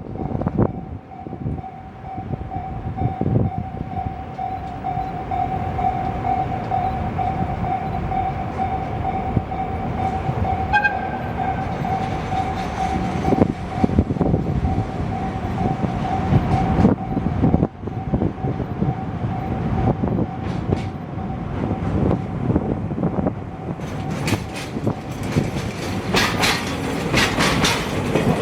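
DE10 diesel-hydraulic locomotive hauling freight wagons slowly across a level crossing, its engine running over the steady tone of the crossing alarm. Wheels clack over the rail joints and crossing in the last few seconds.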